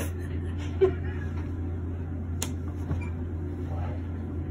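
Steady low hum of a hospital room, with a short voice sound about a second in and a sharp click about two and a half seconds in.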